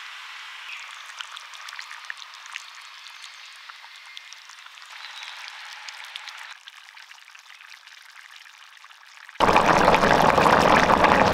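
Beef roast gravy simmering in a pan, with soft bubbling and small pops. About nine seconds in, a much louder steady rushing noise cuts in abruptly.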